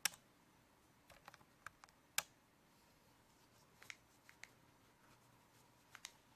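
Faint, scattered crinkles and clicks of a paper towel being handled and rubbed over an iPod Shuffle. Two sharper clicks stand out, one right at the start and one about two seconds in.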